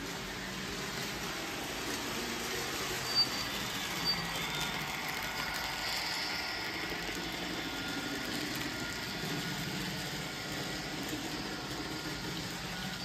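N scale model train, an EMD SD40-2 locomotive pulling freight cars, running past on its track: a steady rolling and motor hum, with two sharp clicks about three and four seconds in.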